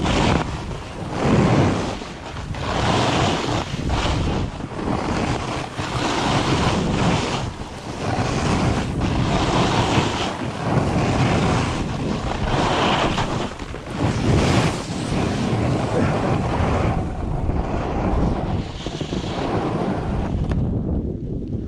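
Wind buffeting the microphone and a splitboard's edges scraping over crusty, wind-rippled spring snow, surging with each linked turn about every second or two. It eases off near the end as the rider slows.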